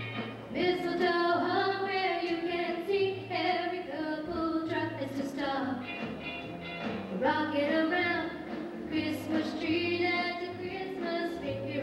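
Female soloist singing into a handheld microphone, with long held notes, over a low bass accompaniment.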